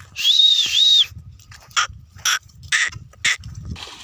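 A herder's loud, piercing whistle in two quick swells, given to drive a herd of buffalo. It is followed by four short, sharp calls about half a second apart.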